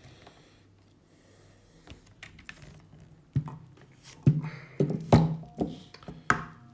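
Bolt-on guitar neck being worked out of its wooden neck pocket: faint rubbing at first, then a string of knocks and thumps as the neck and body are handled and set down on the bench.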